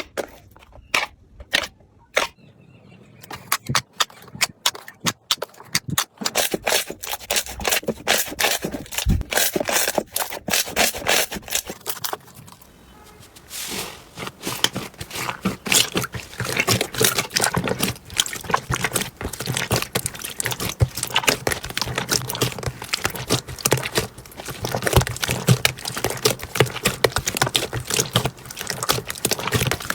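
Slime being squeezed and poked, giving many small crackling pops and clicks: scattered at first, then coming thick and fast, with a short lull about halfway through.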